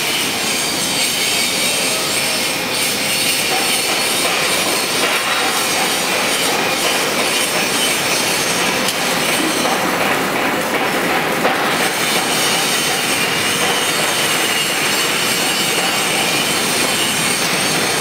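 Loud, steady, harsh machinery noise: a dense rasping hiss with no clear rhythm or tone.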